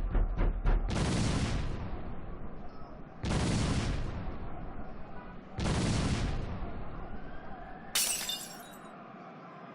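Animated dynamite explosion sound effects: a sudden blast opens a run of three separate rumbling bursts about two and a half seconds apart, each fading away, then a sharp shattering crash near the end.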